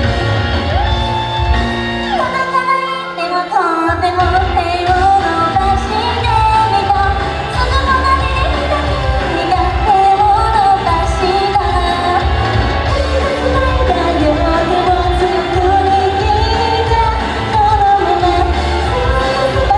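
Idol pop song performed live: singing over a loud backing track with a heavy, steady bass beat. The beat drops out for a moment about two seconds in, then comes back under the vocal line.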